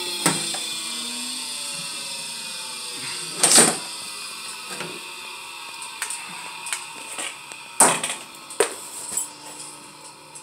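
Electric chainsaw-chain sharpener's motor and grinding wheel winding down, its hum falling slowly in pitch and fading. A few sharp metal knocks and clanks from the chain being handled in the sharpener, the loudest about three and a half and eight seconds in.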